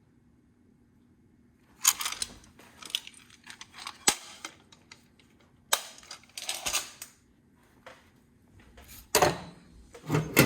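Small toolboxes and their contents being handled: a scattered string of sharp clicks, knocks and short clatters starting about two seconds in, with the loudest knock near the end.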